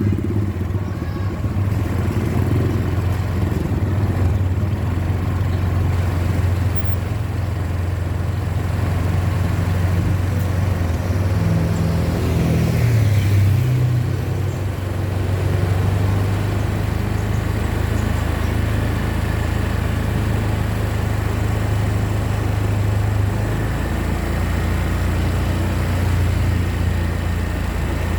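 Bus engine running with a steady low drone; its pitch rises and falls briefly about halfway through.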